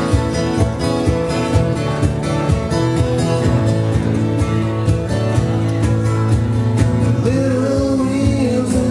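Live acoustic band music in a country/bluegrass style: two acoustic guitars strummed over a drum kit keeping a steady beat. A male voice starts singing about seven seconds in.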